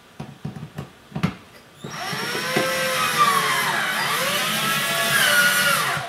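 Cordless drill driving a drywall screw through a wooden paint stick into a drywall patch. A few clicks and knocks come as the screw is set. About two seconds in the motor starts and whines for about four seconds, its pitch dipping in the middle and rising again.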